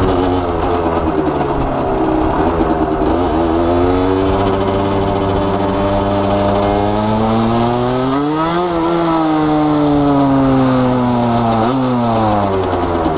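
Supermoto motorcycle engine under way: its pitch climbs steadily to a peak about nine seconds in, then falls away as the throttle closes, with a short blip of revs near the end.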